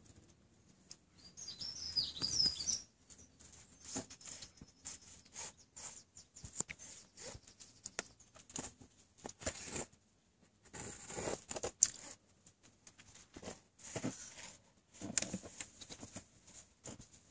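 Leather boot sole pressing and grinding cherry tomatoes on a concrete paving slab. Irregular clusters of scuffs, scrapes and soft squelching taps.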